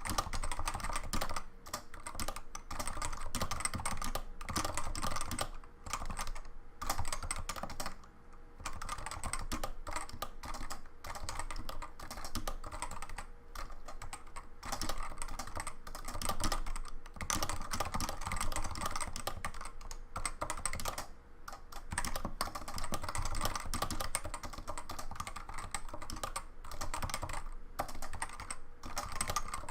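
Fast, continuous typing on a CoolerMaster Novatouch TKL keyboard with Topre rubber-dome capacitive switches and ABS doubleshot keycaps: a dense run of keystrokes with brief pauses.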